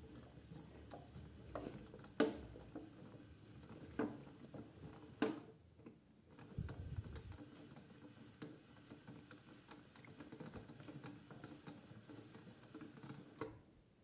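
AEG Lavamat toy washing machine drum turning a wet cloth in water, with a faint steady high whine and many small pattering knocks, a few sharper knocks among them. The sound stops briefly a little before halfway, then the drum starts turning again with a low hum, and it stops again near the end.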